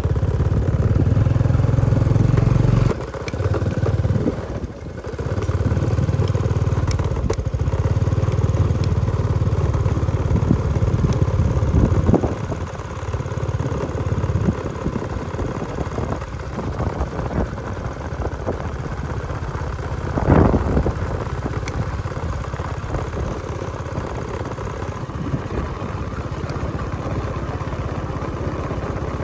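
Motorcycle engine running on a ride, easing off briefly twice a few seconds in and running lower after about twelve seconds, with a short louder knock or rattle about twenty seconds in.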